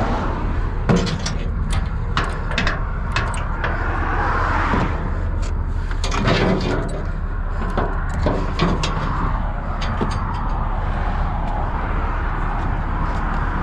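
Metal clanks and chain rattles as a steel tow hook and a dump truck's tailgate chain are handled, the sharpest knock about a second in, over a steady low rumble.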